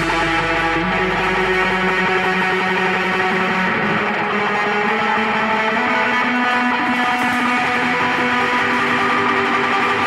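Music with guitar: held, lightly distorted chords ringing out without a clear beat, changing about a second in and again about four seconds in, the low bass dying away.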